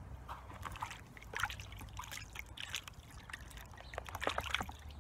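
Water sloshing and splashing in a gold pan as the concentrates are washed down, in irregular splashes that are loudest about a second and a half in and again about four seconds in.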